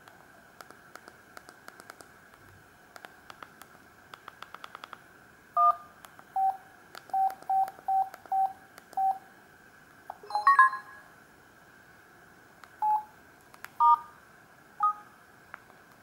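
Samsung GT-C3212 mobile phone's keypad being pressed: a run of light button clicks, then short electronic key beeps, some of them two-toned. A quick cluster of tones comes about ten seconds in, and three more beeps follow near the end.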